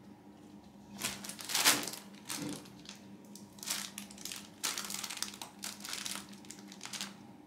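Irregular bursts of rustling and crinkling as a tabby kitten and a cat scramble over a black fabric cat tunnel. The loudest burst comes about a second and a half in, and a longer stretch of rustling follows near the end.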